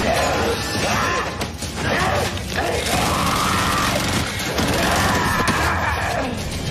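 Fight-scene sound mix: hits and crashing impact effects with screams and yells, over music.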